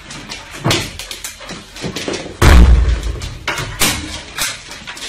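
Scattered knocks and clattering of furniture, with one heavy thud about two and a half seconds in, as a large dog climbs about wooden chairs and a table.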